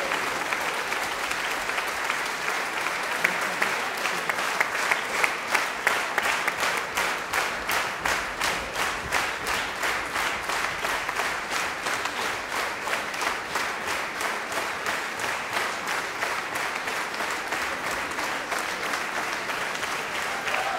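Concert-hall audience applauding. A few seconds in, the clapping falls into a steady rhythm in unison, about two to three claps a second, and it loosens again near the end.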